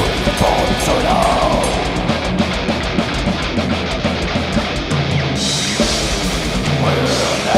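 Death metal band playing live in rehearsal: heavily distorted electric guitars and bass over a drum kit. A fast run of drum hits fills the middle, and a cymbal wash comes in about five seconds in.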